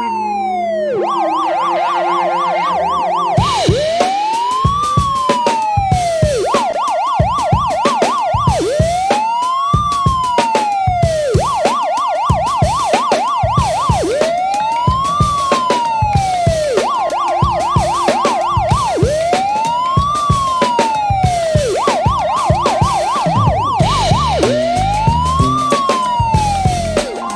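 Police car siren sound effect, switching back and forth between a slow rising-and-falling wail and a fast warbling yelp, over background music with a steady beat that comes in a few seconds in.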